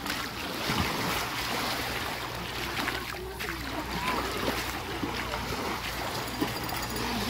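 Steady rush of waves and wind at the shore, with a low steady hum underneath and faint voices of people in the background.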